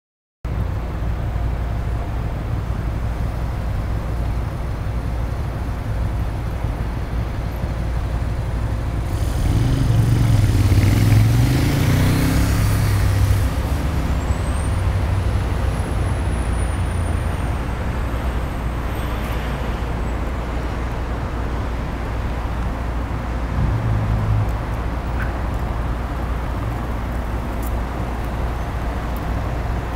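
Steady city road traffic, a constant low rumble of cars going by. About ten seconds in, one louder vehicle passes and swells for a few seconds. Just after it, a thin high squeal rises and then falls away over several seconds.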